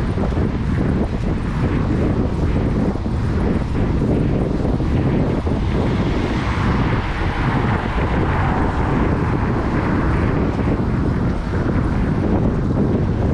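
Steady wind rumble on the microphone of a bike-mounted action camera while riding. A rushing sound swells about halfway through and fades a few seconds later.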